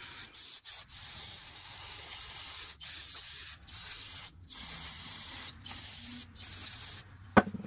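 Aerosol can of non-chlorinated brake cleaner hissing through its extension straw in a string of short sprays with brief breaks, cleaning a lawn mower engine's governor linkage, which squeaks a little. The spraying stops about seven seconds in, followed by a sharp click.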